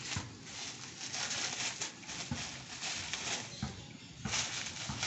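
Plastic bubble wrap crinkling and rustling in irregular bursts as a packed part is handled and unwrapped.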